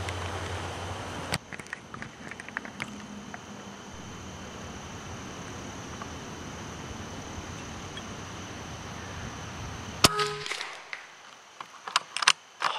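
Hatsan BullBoss .25 air rifle firing once: a single sharp crack about ten seconds in, with a few smaller sharp snaps near the end. Wind rumbles on the microphone in the first second or so.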